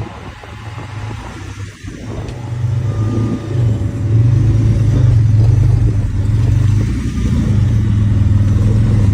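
V6 engine of an off-road rock-crawling buggy running under load, getting louder about two to four seconds in and then holding steady.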